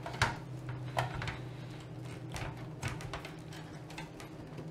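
A power supply carrying a 3.5-inch hard drive being pressed back into a Mini-ITX computer case: a handful of light knocks and clicks of parts against the case, over a low steady hum.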